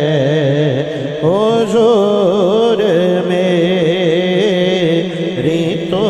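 A man singing a naat, holding and ornamenting long vowels through a microphone and loudspeaker, over a steady low drone.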